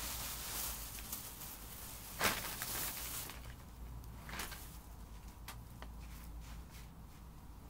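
Black plastic bag rustling and crinkling as it is handled and pulled away from a fursuit head, busiest in the first three seconds with a sharp crackle a little after two seconds in, then fainter scattered rustles.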